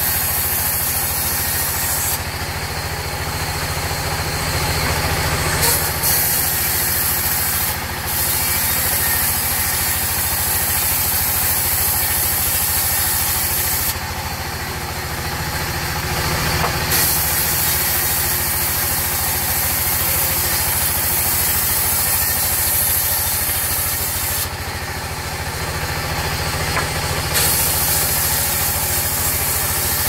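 Sawmill band saw running under power, its blade cutting through timber with a loud, steady hiss over the hum of the drive. The hiss thins out three times for about three seconds each, a few seconds in, near the middle and near the end.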